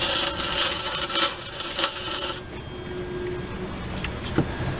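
Electric arc welder crackling and sizzling as a bead is laid on a car differential, stopping suddenly about halfway through; a few light metallic clicks follow.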